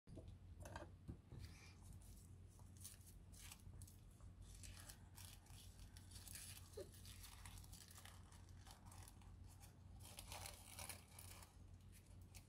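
Faint, irregular rustling and crinkling of thin paper and plastic wrapping being handled and peeled off a small telescope lens, over a low steady hum.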